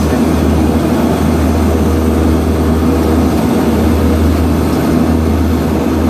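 Let L-410 Turbolet's Walter M601 turboprop engines running, heard inside the cabin as a loud, steady low drone with a constant hum above it while the aircraft rolls along the runway after landing.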